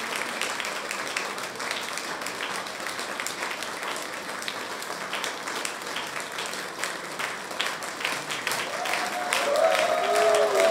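Concert audience applauding steadily, a dense patter of many hands clapping. Near the end a voice rises over the clapping for a couple of seconds.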